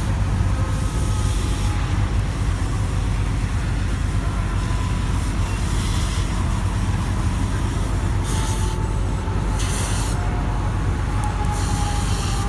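Steady low rumble of highway traffic and running fire engines, with a few short hissing surges, the clearest about eight and ten seconds in.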